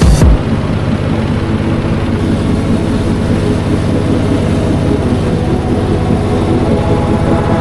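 Small river ferry boat's engine running steadily at an even speed.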